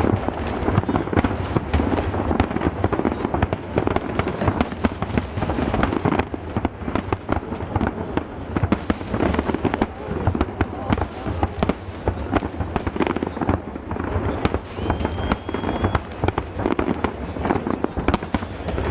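A big aerial fireworks display: shells bursting in a dense, continuous barrage, many bangs and crackles a second with no pause.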